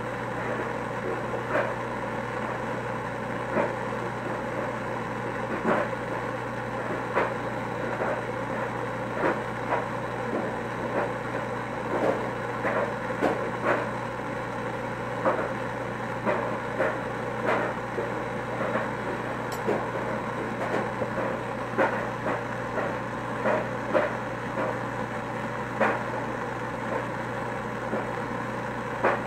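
Handheld gas torch on a yellow fuel cylinder burning with a steady hiss as glass rods are heated in its flame. Short, sharp clicks come every second or two.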